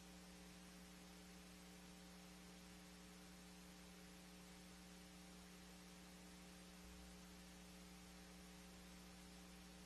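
Near silence: a faint, steady electrical hum, one low tone with a few weaker higher tones above it, over light hiss.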